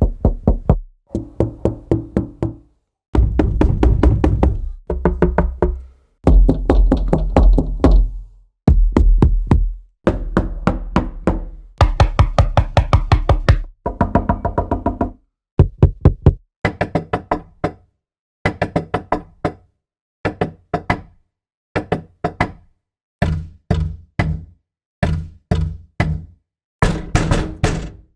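Knocking on a door, over and over: bursts of several quick raps, each burst a second or two long, separated by short silences. The knocks vary from heavy, deep, booming ones to shorter, lighter, sharper raps toward the end.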